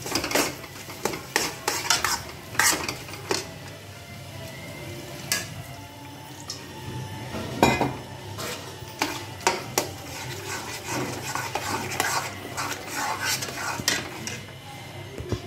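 Steel spatula scraping and knocking irregularly against an iron kadhai as a thick tomato-and-spice masala is stirred, with a light sizzle of the masala frying in mustard oil.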